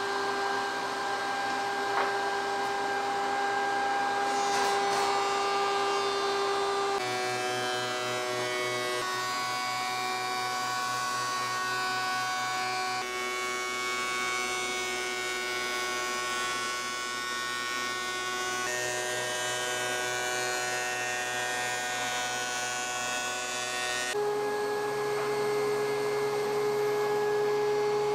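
DeWalt two-speed portable thickness planer running with a steady motor whine as boards are fed through it. The tone of the whine changes abruptly a few times.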